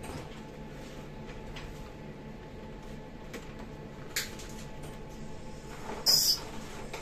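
Quiet workshop handling over a faint steady hum: a few light clicks of small tool parts, then a short high hiss about six seconds in.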